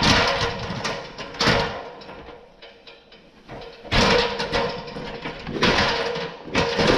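Aluminium extension ladder being moved, clanking and rattling about five times, with a metallic ring hanging on between the knocks.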